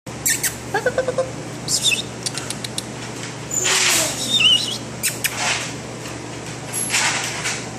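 Young American Bully puppy giving small high squeaks and whimpers, a few short ones about a second in and a thin squeal a little past halfway, with short breathy noises between.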